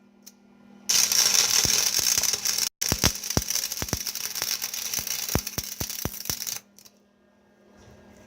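Electric welding arc crackling and hissing with sharp pops, while weld is laid inside a nut set over a broken wheel-hub stud. It comes in two runs, about two seconds and then about four seconds, with a brief break between them, over a steady low hum.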